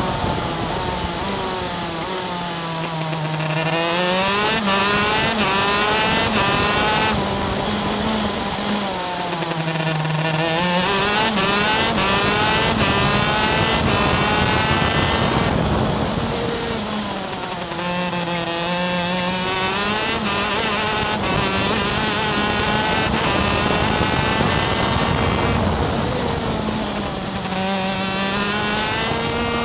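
Racing kart engine on a flying lap, heard from on board: the revs drop four times, under braking into the corners, and climb again on the straights.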